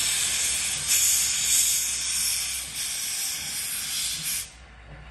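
Small steam tank locomotive moving off with its cylinder drain cocks open, blowing a loud, steady hiss of steam as it clears condensate from the cylinders. The hiss cuts off suddenly near the end as the drain cocks are closed.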